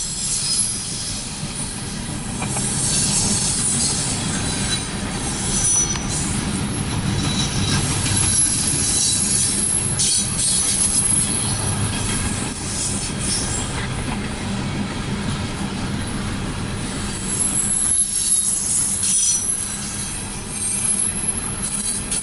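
Empty grain train's freight cars rolling past, a steady rumble of wheels on the rails with high-pitched wheel squeal coming and going over it.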